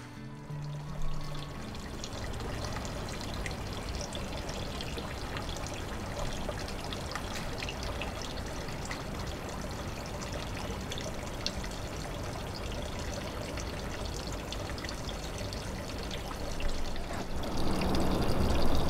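Water pouring and splashing steadily onto stone and concrete, growing louder near the end.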